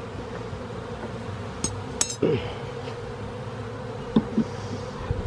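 Honeybees buzzing steadily over an open hive, with a brief falling buzz about two seconds in. A few sharp clicks and knocks from the wooden frames and hive tool being handled: two about two seconds in and two more about four seconds in.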